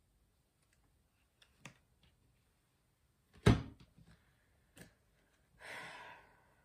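Tabletop handling noise as a tarot card is put down: a few light taps, then one sharp thump on the table about three and a half seconds in, another tap a second later, and a short soft rustle near the end.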